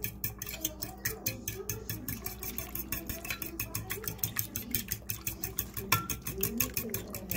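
Fork beating eggs and milk in a dish, tapping against the sides in a quick, steady rhythm of about five or six clicks a second.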